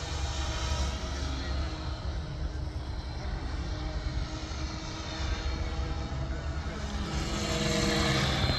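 Electric RC helicopter in flight, its motor and rotor blades making a steady whine over a low rumble, growing louder near the end as it comes closer.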